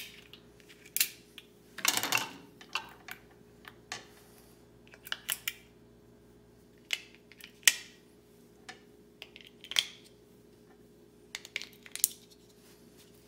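AA batteries being taken out of and pressed into the plastic battery pack of a Schlage Encode deadbolt: sharp clicks and short rattles at irregular intervals, with a longer rattle about two seconds in.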